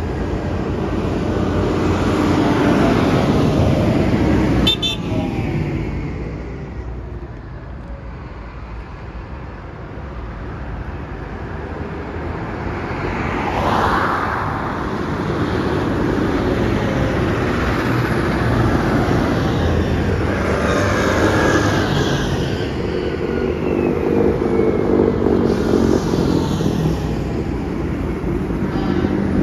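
A procession of tractors and cars passing on a wet road: engines running and tyres on wet tarmac, swelling as each vehicle goes by. There is a short horn toot about five seconds in.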